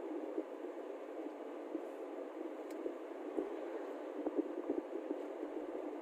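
Steady road and engine noise of a moving vehicle, with a few faint low knocks.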